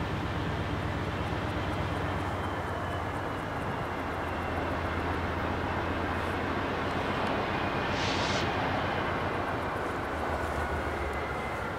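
CN GE C44-9W and C40-8 diesel locomotives pulling a freight train away under power, their engines running with a low steady drone that grows louder as they approach. A faint high whine sits above the drone, and a short hiss comes about eight seconds in.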